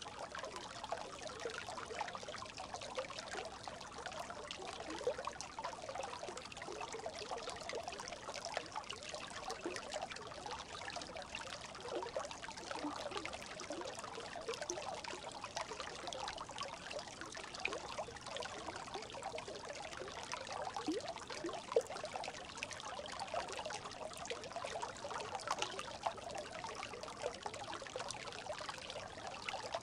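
A small brook babbling: water trickling steadily, with many quick little gurgles.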